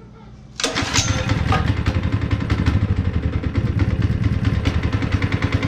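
Honda GX160 single-cylinder four-stroke engine bursting into running about half a second in, then running steadily with a fast, even firing beat.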